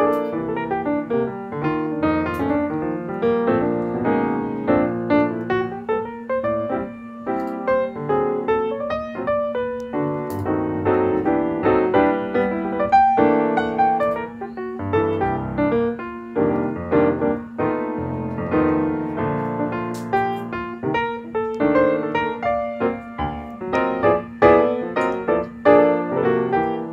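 Background piano music, a run of notes played at an even pace.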